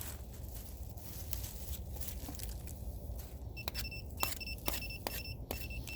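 Metal detector beeping in short, high, on-and-off pulses from about halfway through, over sharp knocks and scrapes of digging in rocky, muddy ground.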